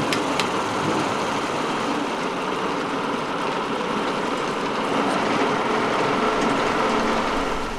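Small metal lathe running steadily: a continuous mechanical hum and hiss with a few faint steady tones. A couple of sharp ticks come right at the start.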